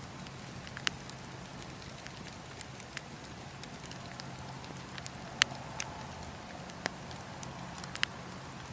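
Bonfire crackling: sharp pops and snaps at irregular intervals, the loudest about five and a half seconds in, over a steady low background.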